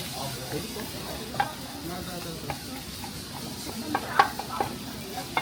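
Food sizzling in a hot pan as it is stirred, with sharp clicks of a utensil against the pan every second or so, the loudest a little after four seconds in.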